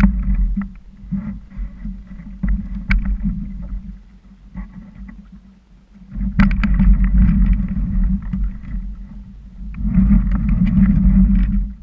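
Small plastic boat under way, with a low rumble of water and wind noise on a camera fixed to its hull. The rumble swells and eases in three stretches and has a few sharp knocks in it.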